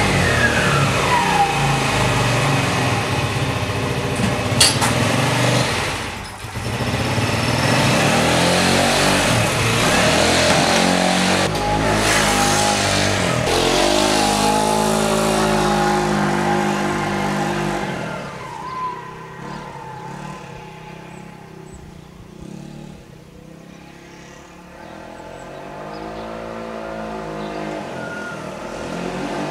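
Baotian 50cc four-stroke scooter's single-cylinder engine revving as it is ridden, its pitch rising and falling with the throttle. It fades to a distant hum about two-thirds of the way through as it moves away, then grows louder again near the end.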